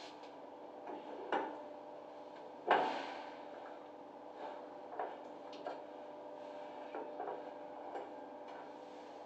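Scattered clicks and knocks of brass and plastic valve parts being handled and fitted into a concealed shower valve body. The loudest clack comes about three seconds in, and there is a steady hum underneath.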